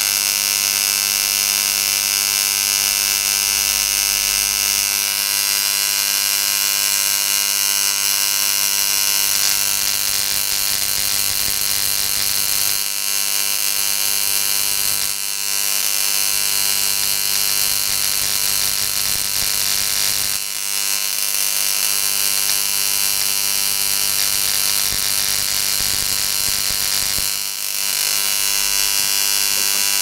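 Automotive ignition coil driven from a light dimmer switch with a 1 µF capacitor, its high-voltage output arcing continuously to a copper wire: a loud, steady electric buzz that dips briefly three times.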